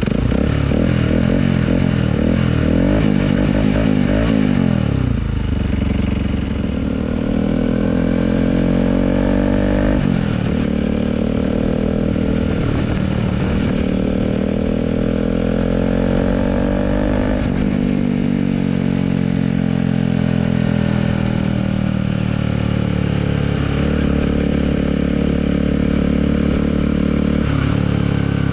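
Bajaj Pulsar RS200's single-cylinder engine through an aftermarket Akrapovic-style slip-on exhaust, pulling through the gears: the revs climb in two long pulls, each ending in a sudden drop at a gear change, then ease off slowly.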